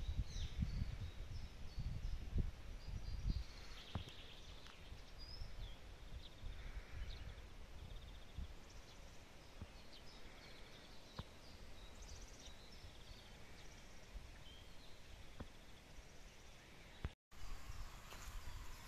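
Several songbirds chirping and singing in garden trees, over a low rumble of wind on the microphone during the first few seconds.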